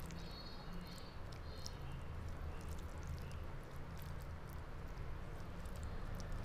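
Fingers mashing and mixing rice with sukto on a metal plate: soft squishing with small scattered clicks, over a low steady hum.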